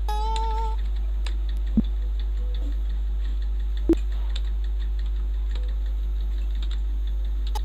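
Computer keyboard keys clicking now and then as data is entered, with two louder key strikes about two and four seconds in. A steady low electrical hum runs underneath, and a short pitched tone sounds right at the start.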